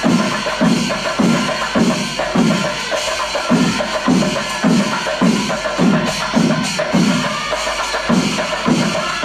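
Panchari melam temple percussion ensemble playing: chenda drums keep a steady beat of about two strokes a second over a constant metallic wash of ilathalam cymbals.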